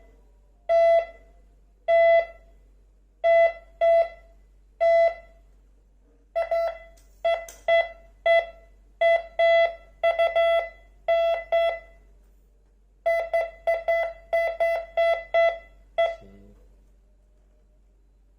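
MD-4030 metal detector beeping as metal passes its search coil: short beeps of one steady tone, in irregular clusters of one to several, showing the detector is working. The beeps stop about sixteen seconds in, followed by a brief knock.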